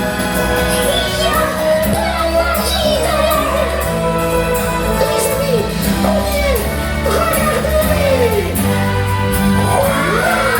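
Upbeat show music with singing: sliding, swooping vocal phrases over a steady, stepping bass line and drums.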